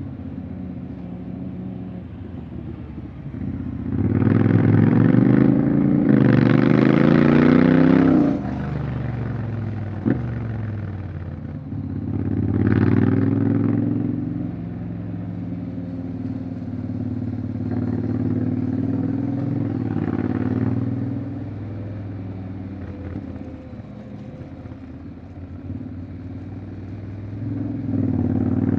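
Honda X-ADV 750's parallel-twin engine running under way, rising in pitch as it accelerates about four seconds in and again around thirteen seconds, then settling to a steadier cruise between.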